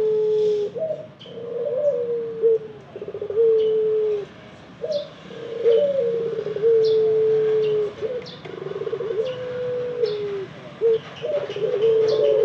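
Ringneck dove cooing: a steady run of low coos, about one a second. Each coo is held level, often with a short rising lead-in, and drops away at its end.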